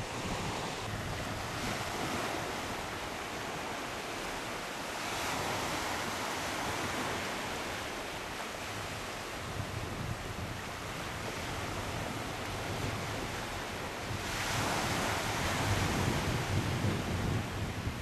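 Small sea waves washing onto a sandy beach, a steady hiss that swells louder about three-quarters of the way through, with wind gusting on the microphone as a low rumble.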